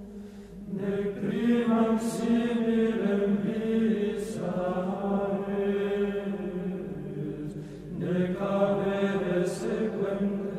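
Slow vocal chant in long held notes over a steady low drone, sung in phrases that begin about one, four and eight seconds in.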